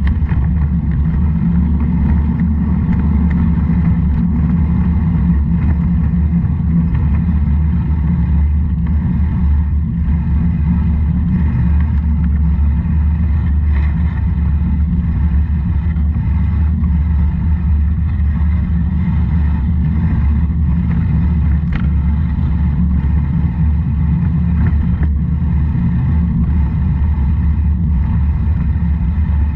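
Steady low rumble of a vehicle rolling down a road, with wind on the microphone.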